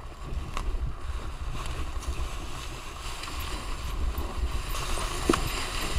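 Enduro dirt bike rolling down a rough forest trail at low revs: a low rumble mixed with wind on the microphone, with a couple of short knocks from the bike over the uneven ground, about half a second in and near the end.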